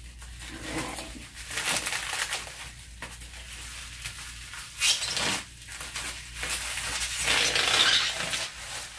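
Plastic bubble-wrap sleeve rustling and crinkling as it is handled and slid off a long fluorescent tube, with a louder crinkle about five seconds in and a longer spell of loud rustling near the end.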